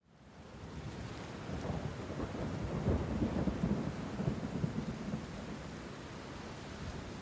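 Rain falling steadily, with a long, low rolling rumble of thunder. The sound fades in from silence at the start, and the rumble swells to its loudest around the middle.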